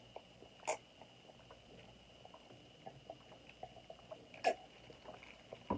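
Someone drinking from a plastic cup: quiet sips and swallows with small ticks, and two louder short swallow sounds, about a second in and again past four seconds.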